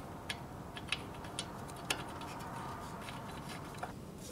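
A few faint, short metallic clicks from the carburetor bowl nut of a John Deere 50 tractor being threaded back on by hand after a new gasket is fitted, over low steady background noise.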